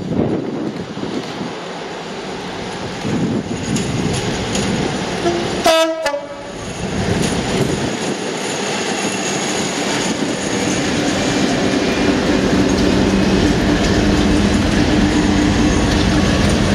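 Two Colas Class 56 diesel locomotives approaching at the head of a freight train, sounding a short horn blast about six seconds in. After the horn, the locomotives' Ruston-Paxman 16-cylinder diesel engines run under power, getting steadily louder as the locomotives draw level, over the rumble of the train on the rails.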